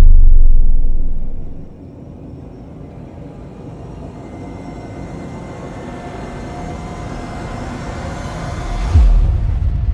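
Cinematic intro sound effects: a deep boom dying away over the first couple of seconds, then a slowly building swell that ends in another deep boom about nine seconds in.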